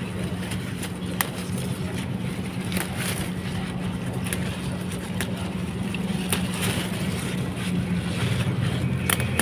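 A steady low engine drone runs underneath. A few sharp clicks and snaps stand out over it as sweet potato shoot tips are picked off by hand.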